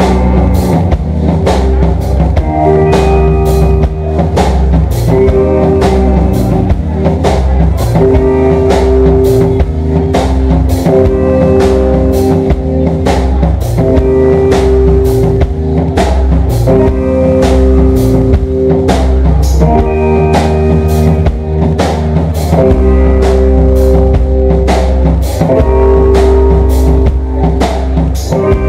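Live rock band playing an instrumental passage on electric guitars and a drum kit, with a steady drum beat and held guitar notes.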